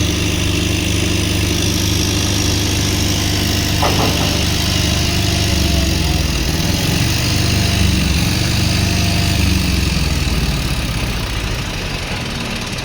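Large vehicle engine idling with a steady low rumble, easing off near the end, with a brief high squeak about four seconds in.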